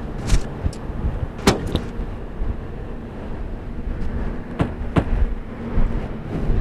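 A car's low, steady rumble with a scattering of sharp clicks and knocks, the clearest about a second and a half in and near five seconds.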